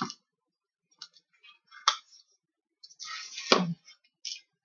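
Scattered rustling and clicking as a potted plant's leaves and pot are handled and moved, with a louder knock about three and a half seconds in.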